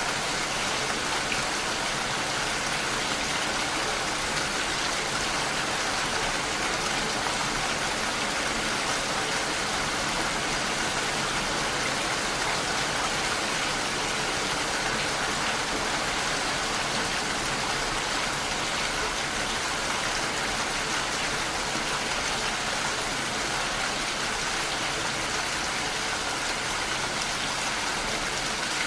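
Steady rainfall, an even hiss of rain that holds constant with no breaks.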